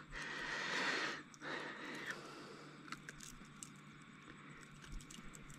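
Quiet handling noises as a lure is worked free of a redfin perch's mouth by hand: two soft rushes of noise in the first two seconds, then faint scattered clicks.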